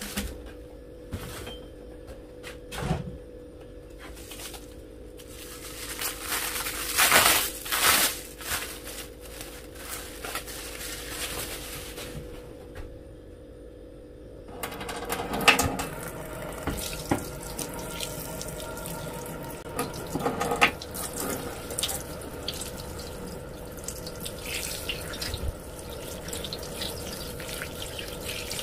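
Plastic wrap crackling and rustling as it is peeled off a dye-soaked tie-dye bundle, then about halfway through a tap starts and water runs and splashes over the fabric into a sink: the freshly dyed shirt being rinsed of excess dye.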